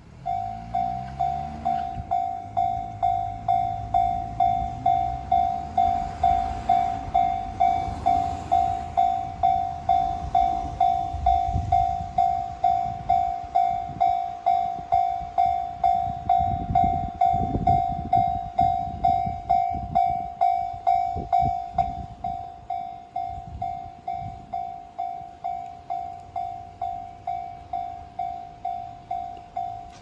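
Japanese level-crossing electronic warning bell starting up and ringing steadily, a single high ding repeated about twice a second. A low rising whirr at the start comes as the barrier arms lower, and about 22 s in the bell drops to a quieter level.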